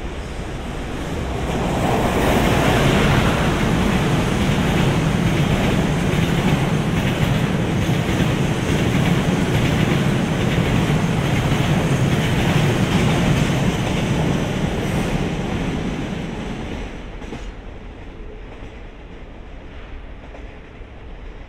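Freight train passing, wheels rolling and clattering on the rails. It grows loud about two seconds in, runs past steadily for about fourteen seconds, then fades away.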